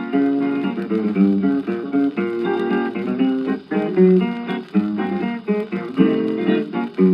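Instrumental break of a 1925 dance-band-era record: an acoustic guitar picking a melody with strummed chords, notes changing several times a second.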